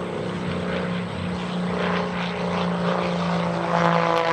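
Pitts Special biplane's piston engine and propeller droning steadily in a low inverted pass, growing louder as the plane approaches.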